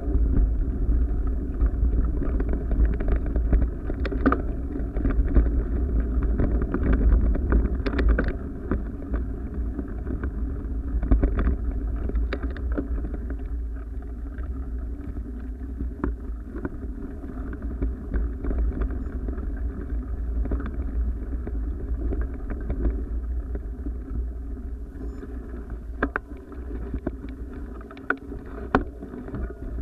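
Wind buffeting the microphone of a moving body-worn camera: a steady low rumble, with scattered knocks and scuffs from the jolting camera.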